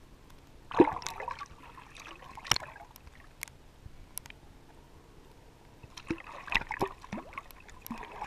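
Pool water splashing and lapping against an action camera held at the surface, with a sharp loud splash about a second in. More splashing and sloshing comes near the end as the camera dips partly under the water.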